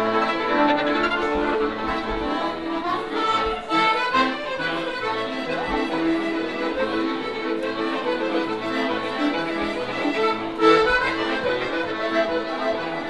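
Live violin and accordion duo playing, the bowed violin line over the accordion's sustained chords.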